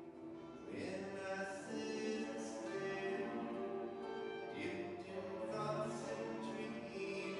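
Small acoustic string ensemble of cello, violin, acoustic guitar and Celtic harp playing a slow piece, with long held notes from the bowed strings.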